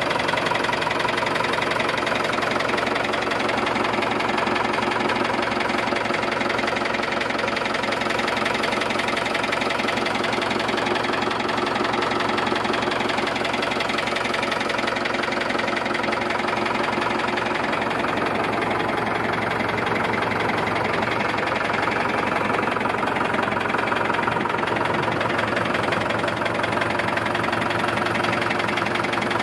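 1977 SAME Saturno 80 tractor's air-cooled diesel engine idling steadily.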